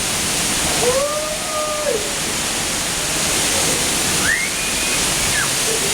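Hurricane wind and heavy rain as a steady roar, with a howl that rises and falls twice.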